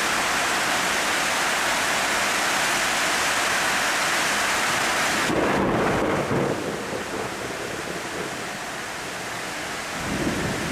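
Heavy rain pouring steadily, with a low rumble of thunder about halfway through and another near the end; after the first rumble the rain's hiss is a little softer.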